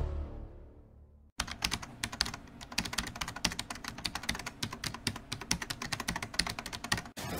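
Typing sound effect: rapid, uneven keyboard clicks that start about a second and a half in and run until just before the end, laid over text being typed out on screen. Before them, the tail of a louder sound fades away in the first second.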